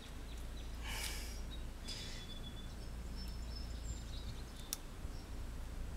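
Outdoor background with a steady low rumble. About a second in there is a short rustle, faint bird chirps come around two to four seconds, and a few light clicks follow as the carburetor's throttle cable and spring are handled.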